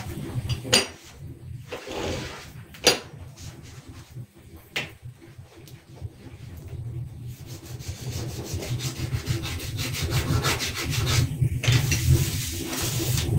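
Scrubbing a kitchen counter by hand with a sponge: a few sharp knocks at first, then rapid back-and-forth rubbing strokes that grow louder in the second half.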